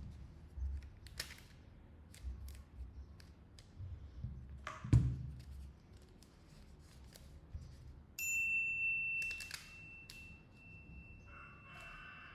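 Small clicks, taps and rustles of hands working on a phone and a piece of plastic, with one louder knock about five seconds in. About eight seconds in a steady high beep sounds for about two seconds, and near the end a faint warbling call is heard.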